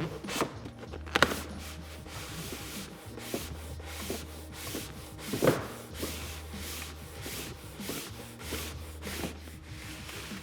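Vinyl banner graphic rubbing and sliding as it is guided and rolled back into a retractable banner stand's base, a string of short irregular swishes with two sharper knocks, one about a second in and one about five seconds in.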